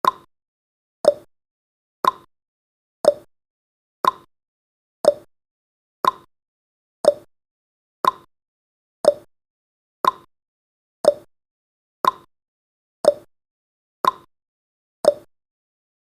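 Countdown timer's tick-tock sound effect: one sharp tick every second, alternating between a higher and a lower click, counting off the last seconds before the timer runs out.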